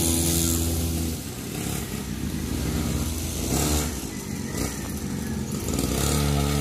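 Small 49cc two-stroke pocket dirt bike engine running as it is ridden, holding a steady rev for about the first second, easing off and wavering through the middle, then revving up again near the end.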